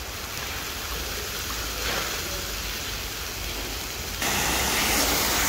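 Steady watery hissing from a giant plov cauldron where salted water has just been poured over the meat and carrots and is heating; it jumps louder about four seconds in.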